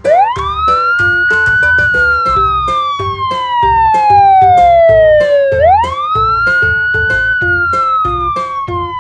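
Police car siren wailing: its pitch climbs quickly, then slides slowly down, twice. A light children's music track with a steady beat plays underneath.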